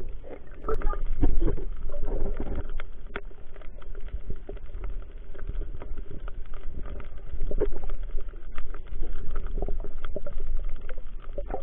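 Muffled underwater sound around a diver on a reef: a low rumbling water noise with a faint steady hum and scattered clicks and knocks throughout.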